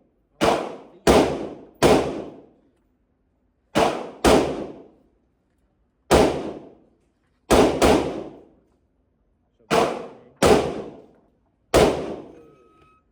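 Gunshots at a shooting range: about eleven shots at an irregular pace, some in quick pairs, each followed by a short echoing tail.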